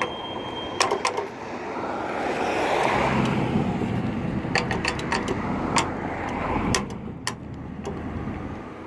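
Road traffic: a vehicle passes, its tyre and engine noise rising to a peak about three seconds in and fading away. A few sharp clicks come near the middle and near the end.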